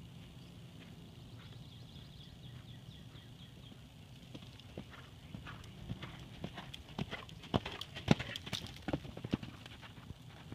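Hoofbeats of an appendix Quarter Horse gelding moving over sand footing, faint at first, then loud and close for a few seconds, loudest about eight seconds in, before fading as the horse moves away.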